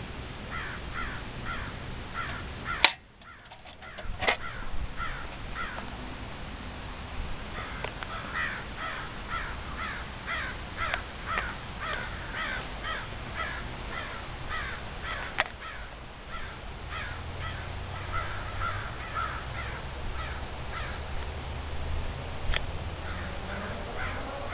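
Crows calling in quick runs of short repeated notes. There is a sharp click about three seconds in, and a few fainter clicks later.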